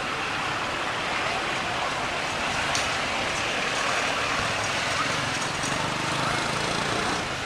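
Steady outdoor background hiss with faint, indistinct distant voices, and no monkey calls standing out.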